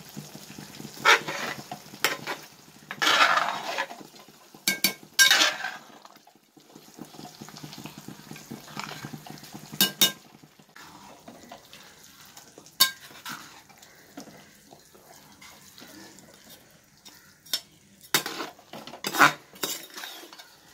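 Metal ladle stirring and scraping rice and chicken in a large aluminium biryani pot, with scattered sharp clinks of metal on metal. A faint sizzle of the simmering pot runs underneath; the seeraga samba rice has just gone in.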